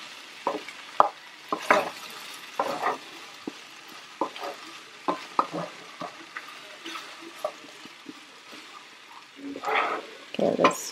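Wooden spatula stirring diced potatoes and sliced sausage in a frying pan: a steady sizzle with irregular scrapes and soft knocks of the spatula against the pan.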